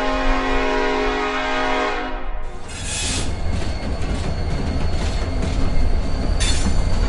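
Train sound effect: a train horn sounds a steady chord for about two seconds, then the train rumbles and rattles along, with two loud bursts of hiss, about three and six and a half seconds in.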